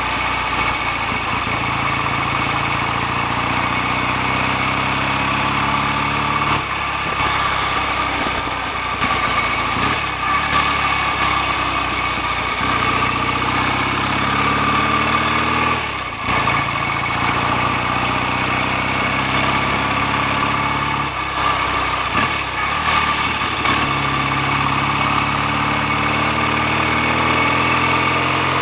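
BSA A65 650cc parallel-twin engine running under way, its pitch climbing under acceleration and dropping back at gear changes about six times.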